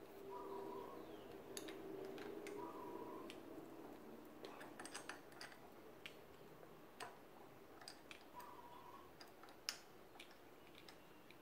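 Faint, scattered small metal clicks and taps as bolts with lock washers and the handlebar clamp are handled and fitted, with a quick run of clicks about halfway and one sharper click near the end.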